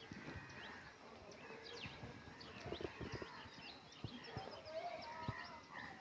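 Flock of rock pigeons pecking grain off a concrete floor: a faint scatter of irregular taps, with thin high chirps of sparrows over them.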